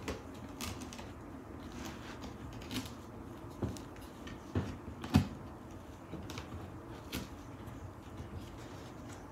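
A few scattered soft knocks and clicks over a low steady room background, the loudest about five seconds in.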